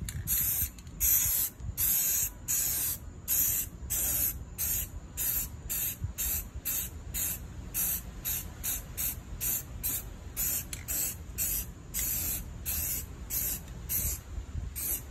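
Aerosol can of Rust-Oleum high-heat spray paint hissing in short bursts, about two a second, as black paint is sprayed onto a cast-iron exhaust manifold.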